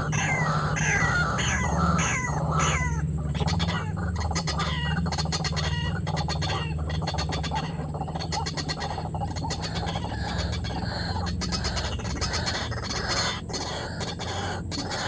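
White-breasted waterhen calling: a run of repeated downward-sliding notes about twice a second, then bursts of rapid clicking chatter, over a steady low hum.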